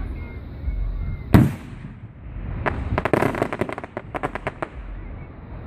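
Aerial fireworks bursting overhead at close range: one loud boom about a second and a half in, then a fast run of sharp pops lasting about two seconds.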